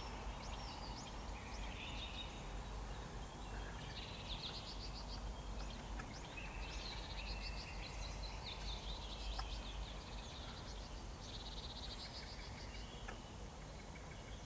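Wild birds singing and calling: many short, high chirps and quick trills, overlapping one after another, over a faint low rumble.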